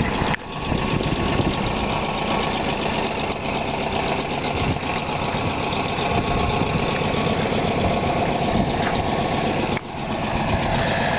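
1963 Volkswagen Type 3 Notchback's air-cooled 1500 flat-four engine idling steadily and running well.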